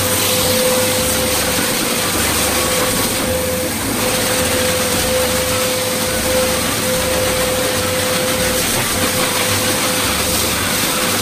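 Pet grooming blower dryer running steadily, a loud rush of air with a steady motor whine, drying a wet husky's coat.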